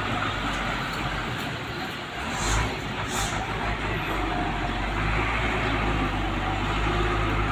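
Heavy diesel cargo truck's engine running as the loaded truck creeps along, a steady low drone. Two short high-pitched sounds come about half a second apart, a little under three seconds in.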